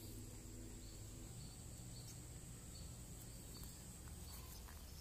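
Faint outdoor ambience: insects keeping up a steady high-pitched drone, with short faint chirps now and then over a low rumble.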